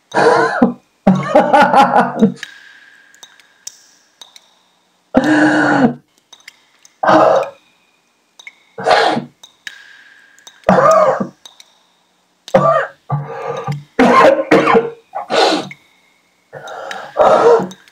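A man's wordless, distressed vocal outbursts: choked sobbing cries and gasps in about a dozen separate bursts with short silences between.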